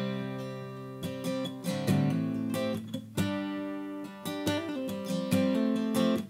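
Steel-string acoustic guitar with a capo, strummed: chords struck about once a second, some in quick pairs, each left to ring out between strokes. It is recorded through a budget USB condenser microphone and mixed with compression and EQ.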